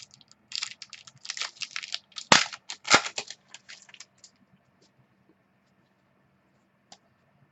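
Trading cards and a foil card-pack wrapper being handled: a quick run of crinkling clicks and snaps, with two sharp snaps about two and three seconds in, then it goes nearly quiet.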